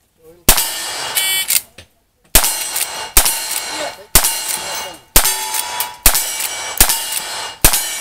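Lever-action rifle fired eight times, a shot about every second after a short pause following the first. Each shot is followed by the ringing clang of a steel target being hit.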